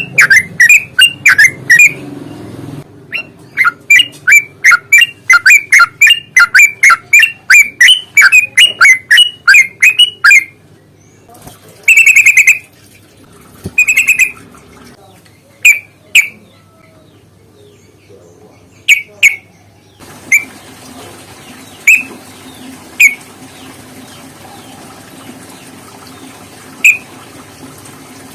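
Yellow-vented bulbul calling: long runs of short, sharp chirps, about four a second, then a couple of longer harsh calls, then single chirps every second or two.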